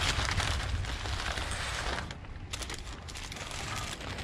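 Paper rustling and crinkling as a paper takeout bag and taco wrappers are handled, in a quick run of small crackles with a short lull about two seconds in, over a low steady rumble.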